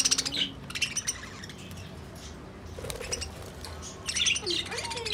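A flock of budgerigars chirping and chattering in a wire cage. There is a burst of rapid chirps at the start, a quieter stretch, then more chirps and warbles near the end.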